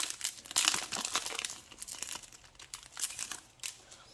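Foil wrapper of a Yu-Gi-Oh booster pack crinkling and tearing as it is opened by hand. The crinkling is densest in the first two seconds, followed by a few shorter rustles.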